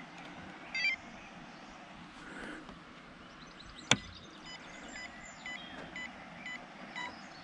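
Electronic beeps from an RC bait boat and its FlySky FS-i6 transmitter being powered up: a short beep about a second in, a single sharp click near the middle as the boat is switched on, then a run of short beeps about twice a second near the end.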